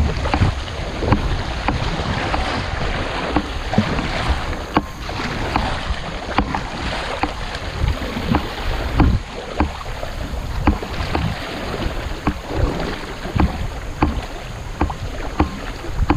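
Kayak being paddled down a fast-flowing, flood-swollen creek: a steady rush of water with frequent irregular knocks and splashes from the paddle.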